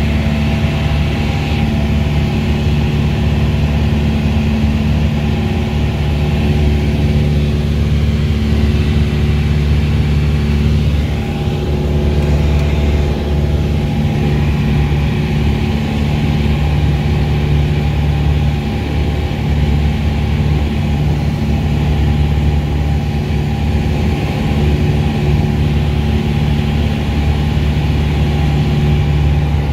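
The four-cylinder Lycoming engine and propeller of a Piper PA-28-181 Cherokee Archer II running steadily, heard from inside the cabin as a loud, even drone.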